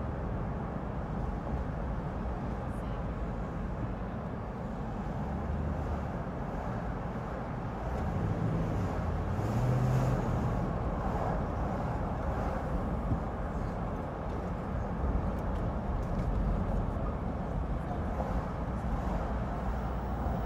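City street traffic heard from the roof of a moving car: a steady rumble of engines and tyres. It swells from about eight to eleven seconds in, where a low engine drone rises over it.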